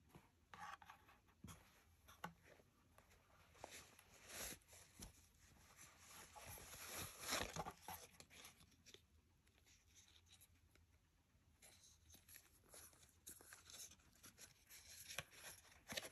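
Faint rustling and soft scraping of a suede dust bag and cardboard box being handled by hand as a leather belt is unwrapped, with a few small clicks; busiest about halfway through.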